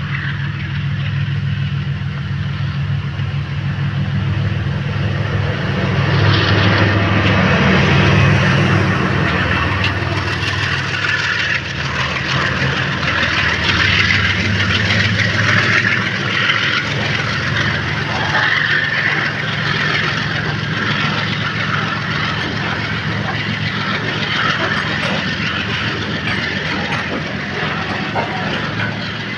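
WDG4G diesel locomotive accelerating past with a freight train. Its engine gives a steady low drone, loudest as it comes by several seconds in and fading after about the middle. The BCNA covered wagons then roll past close by with a continuous rattling, hissing wheel-on-rail noise.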